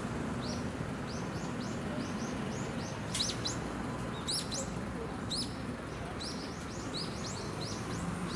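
Small birds chirping: a long run of short, high chirps in quick succession, over a steady low background hum.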